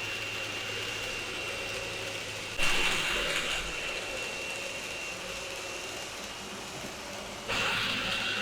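A small motor running with a steady high whine over a low hum. It gets suddenly louder twice, about two and a half seconds in and near the end, then settles back.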